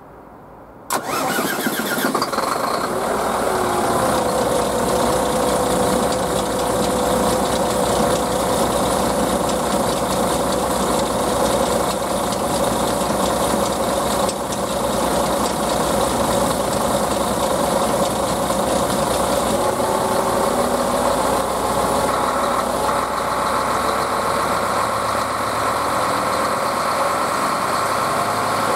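Solaris Urbino 15 III city bus engine starting, catching suddenly about a second in, then idling steadily.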